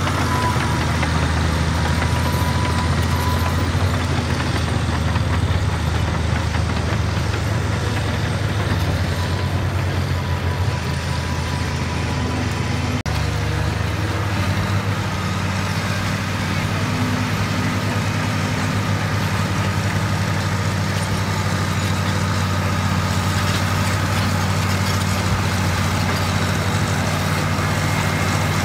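Caterpillar crawler machine's diesel engine running steadily, its note shifting slightly about halfway through.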